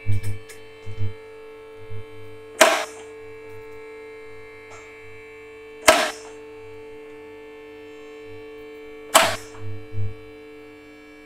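Two-post car lift raising a car: its electric hydraulic pump runs with a steady hum, and a sharp metallic clack sounds about every three seconds, three times, as the lift's safety locks catch each notch.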